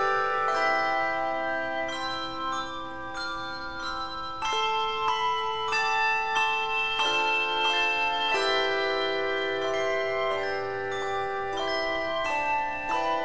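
Handbell choir ringing a hymn arrangement: chords of sustained, ringing bell tones that change every second or so, softer for a couple of seconds near the start and then fuller again.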